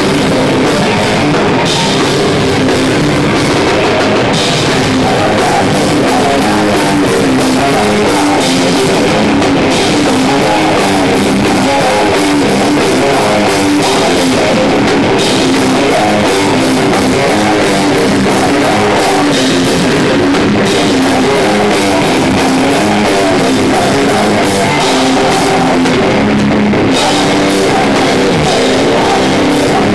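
Hardcore/doom band playing live: heavily distorted electric guitar over a drum kit with crashing cymbals, loud and unbroken.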